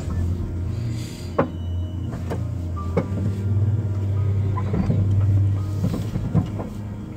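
Vehicle engine running with a steady low hum, heard from inside the cabin while driving slowly, with a few sharp knocks and rattles.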